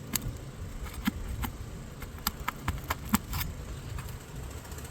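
Asphalt shingle being lifted and pried loose: irregular sharp cracks and ticks, bunched in the first three seconds or so, as the old shingle tears around its nail heads.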